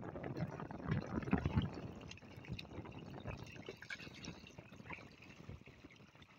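Many tilapia splashing and thrashing at the water surface in a crowded net cage, a busy patter of small splashes that is loudest at first and gradually dies down.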